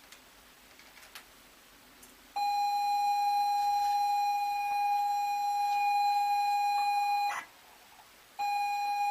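ZX Spectrum tape-loading signal: a steady, buzzy pilot tone lasting about five seconds, which ends in a brief crackle of header data. After about a second's pause the pilot tone starts again for the next block.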